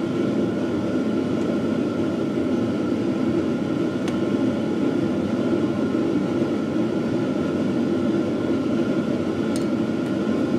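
A steady machine hum fills the room, even and unchanging, with two faint clicks of a wrench on the cast-iron engine block, about four seconds in and near the end.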